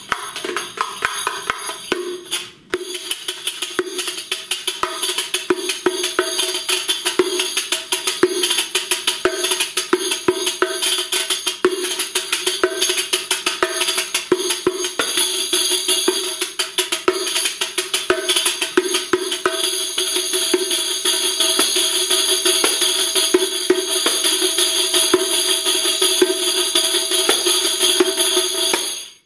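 Egyptian riq, the Arab classical frame tambourine, played solo with the fingers: fast, intricate strokes on the skin head with shimmering brass jingles, in a 13-beat rhythm built from two Arabic rhythms. The playing breaks off for an instant about two and a half seconds in and stops at the end.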